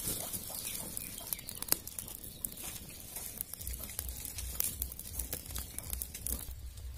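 Fire of dry straw and sticks crackling in a clay stove: many sharp pops and snaps over a hiss of flame, as a plucked chicken is singed in it.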